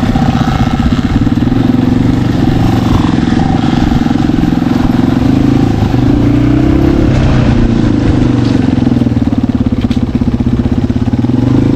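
Dirt bike engine running at low revs over rough ground, with a brief rise in revs about seven seconds in before it settles back.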